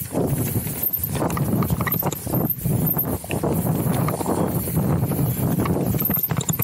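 Downhill mountain bike running fast over a rough dirt and stone trail: continuous tyre roar on the dirt with a rapid run of irregular knocks and rattles as the bike hits bumps and loose stones.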